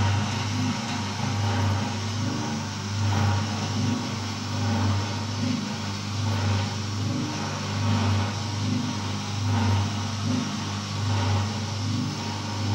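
Electric drive of a 500 kg stainless steel paddle blender running, its paddle agitator turning in an empty trough: a steady low hum that swells about every second and a half.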